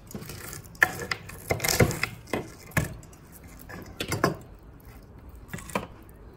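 A string of irregular sharp knocks and clacks: grilled crab halves being set down and shifted on a ceramic plate, and metal tongs knocking on a wooden chopping board.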